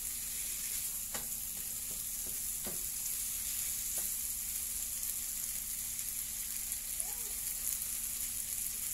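Prawns, onion and tomato sizzling steadily in a nonstick frying pan, with a slotted spatula stirring through them and scraping or tapping the pan a few times.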